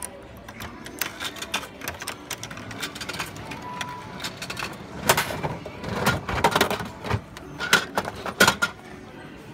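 Coins clicking into a capsule-toy (gacha) vending machine, then its crank knob turned with a run of small ratchet clicks. About five seconds in come louder plastic clunks and knocks as the capsule drops and is taken out through the chute's flap.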